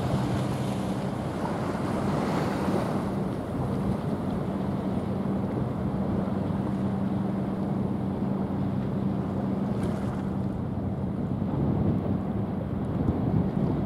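Steady low drone of a small coastal cargo ship's diesel engine as it passes, mixed with the wash of water and wind on the microphone, which is gustier in the first few seconds.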